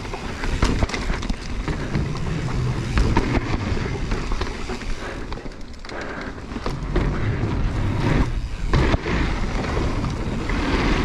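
Mountain bike riding fast downhill: knobby tyres rolling and scrubbing over a dirt trail, then clattering across the planks of a wooden boardwalk in the second half, with sharp knocks from bumps and bike rattle over a steady rushing noise.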